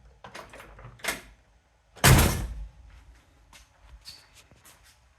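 A car door being worked and shut: a light latch click about a second in, then a solid slam about two seconds in, followed by a few faint clicks. The door has just been realigned and now closes without dropping.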